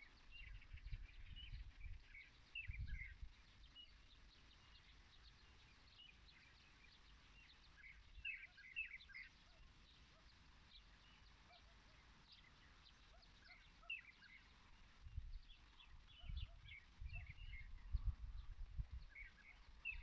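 Faint chorus of small songbirds in a grove, short high chirps and twitters coming in scattered bunches. Bursts of low rumble come and go near the start and again in the last few seconds.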